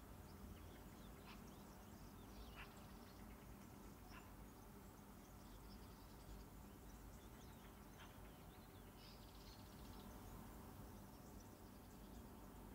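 Near silence: quiet room tone with a low steady hum and a few faint, short high chirps now and then.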